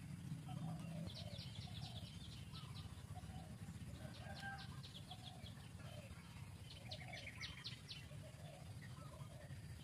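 Birds calling outdoors: three bursts of rapid, high chirps about a second or more each, with scattered lower calls, over a low steady rumble.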